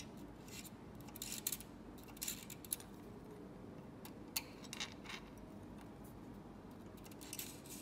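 Faint, scattered clicks and taps of small metal hand tools against a metal scale-model truck chassis, as a hex driver loosens the screw on a steel-wire cable sleeve.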